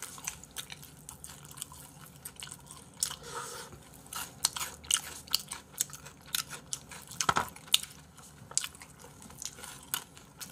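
Close-miked chewing and crunching of fried chicken, with irregular sharp crunches and wet mouth clicks, and one louder short sound about seven seconds in.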